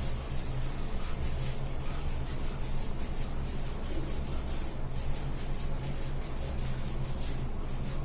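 Hands rubbing and scrubbing wet hair in repeated strokes, several a second, over a steady low rumble.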